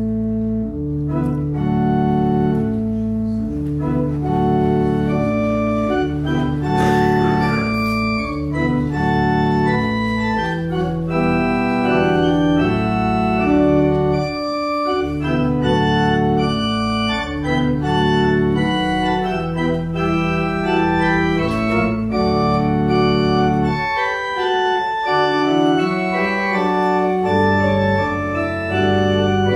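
Organ music: full, sustained chords over a deep bass line, with the chords changing every second or so.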